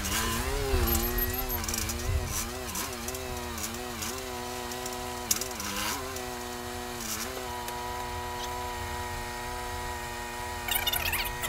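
Forklift running while holding a load up on its mast: a steady hum whose pitch wavers for about the first seven seconds, then holds steady. A short burst of rattling comes near the end.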